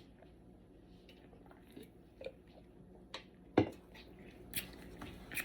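Quiet eating noises: scattered small clicks, smacks and ticks, with one sharper knock about three and a half seconds in.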